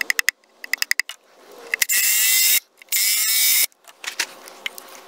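Cordless drill: quick runs of ratcheting clicks from the chuck, then the drill run hard in two short bursts of under a second each, and more scattered clicks after. The drill bits are ones the carpenter thinks are getting worn.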